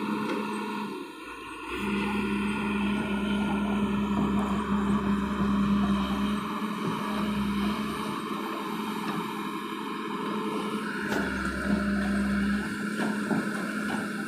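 Excavator's diesel engine running with a steady hum. It dips briefly about a second in, and a deeper rumble comes and goes several times as the load on the machine changes.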